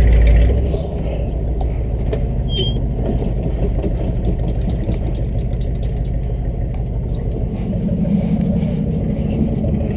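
Tow truck engine running steadily, louder for about the first second.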